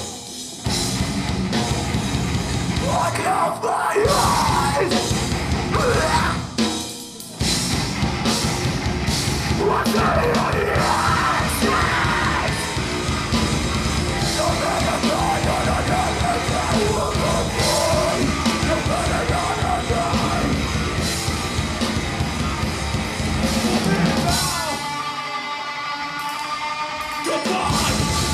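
Live heavy metal band playing loud, with distorted guitars, drums and vocals, heard from the audience. The music stops short a few times, and near the end the drums and bass drop out for a couple of seconds, leaving the guitar alone before the full band crashes back in.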